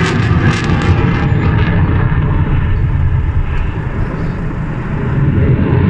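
Dassault Rafale fighter jet's twin turbofan engines giving a continuous low roar during its climb, the upper hiss thinning out a couple of seconds in and swelling again near the end.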